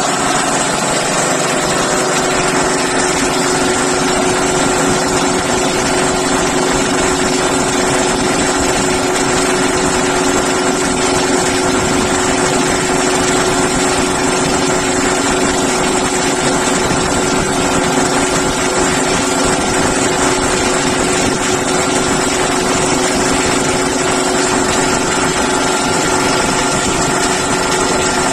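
High-pressure breathing-air compressor running steadily while charging an SCBA air cylinder: a loud, even drone with a constant whine.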